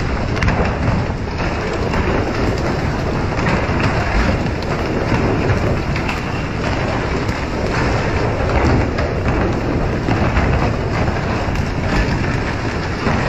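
Steady, loud rush of water spraying along the side of a moving fishing boat and churning in its wake, with a low rumble underneath.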